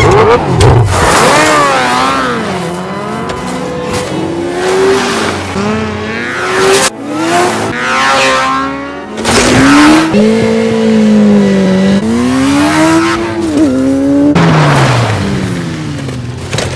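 Motorcycle engine revving as the bike is ridden hard, its pitch rising and falling again and again with the throttle.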